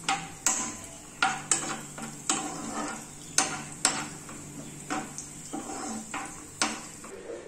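Metal spoon stirring cashews and raisins frying in ghee in a nonstick kadai, scraping and knocking against the pan at an irregular pace, with a faint sizzle underneath.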